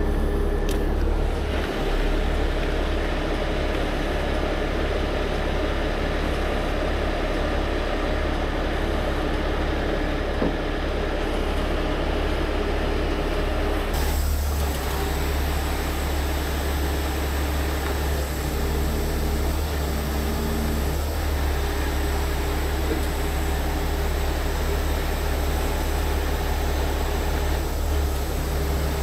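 Heavy-duty 75-ton rotator tow truck's diesel engine running steadily, powering the hydraulic winches during a winch-out, with a low drone and steady hum. A brighter hiss joins abruptly about halfway through.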